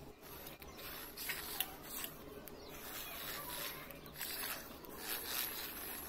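Small DC motor of a cardboard toy tractor running, with its plastic bottle-cap wheels rolling and scraping over concrete. A couple of sharp clicks come about a second and a half in.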